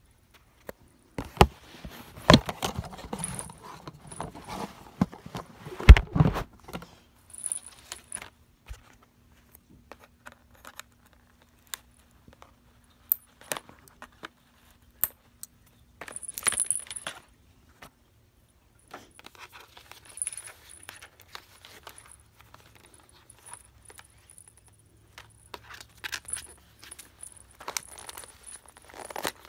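Loud knocks and rustles of handling in the first several seconds, then a small bell on a cat toy jingling briefly several times as the cat noses and paws it, among light clicks and rustles.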